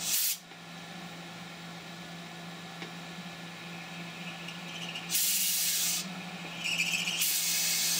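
CNC mill spindle humming steadily while its cutting tool works in the gas block pin hole, with bursts of loud hiss at the start, about five seconds in and again near the end. Just before the last hiss the tool briefly screeches, a sign that the cut needs more oil.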